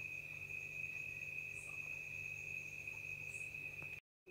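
Faint background: a steady high-pitched tone over a low hum, broken by a brief dropout of total silence near the end.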